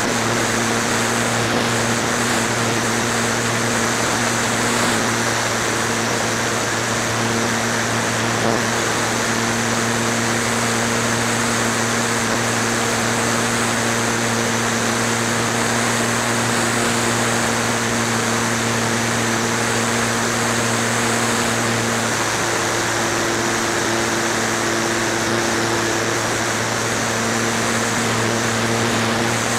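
Flyzone Calypso RC plane's motor and propeller running at a steady drone, heard from its onboard camera with air rushing over the microphone. The pitch shifts slightly about three-quarters of the way through as the throttle changes.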